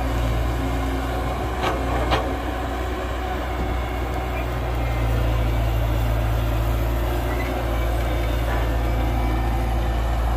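Heavy diesel engines of an excavator and dump truck running steadily, with two sharp knocks about half a second apart a couple of seconds in.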